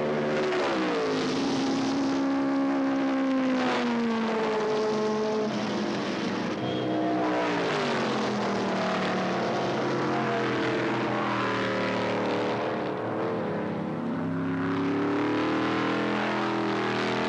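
Formula 5000 racing cars' Chevrolet V8 engines at racing speed, the pitch climbing and dropping again and again as the cars accelerate, change gear, lift for corners and pass by. At times two engine notes overlap.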